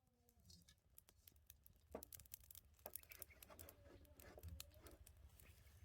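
Near silence, with faint scattered clicks and light rustling.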